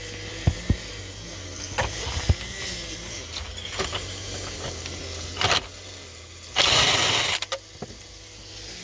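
Power drill with a socket adapter working a bolt inside a car door: metal clicks and short runs of the drill, with one loud burst of noise about seven seconds in.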